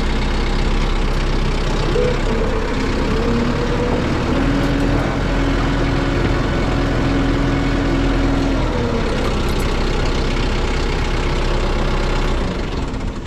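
Kubota M6060 tractor's four-cylinder diesel engine running steadily while the tractor is driven, with a steady whine over the middle few seconds. Near the end the engine is shut off.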